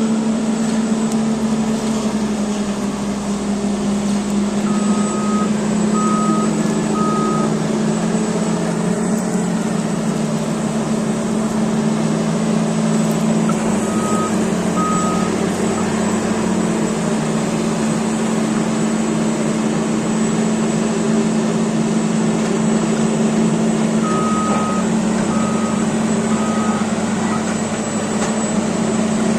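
Caterpillar D8T bulldozer's C15 diesel engine running steadily, with its reverse alarm beeping in short groups of two or three as the dozer backs up.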